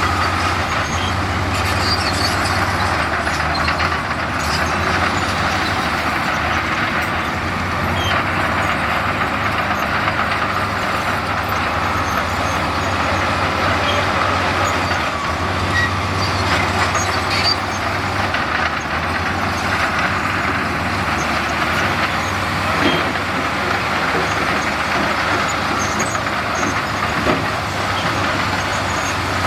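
Heavy diesel construction machinery running steadily under load, a constant low engine drone with scattered short knocks and rattles.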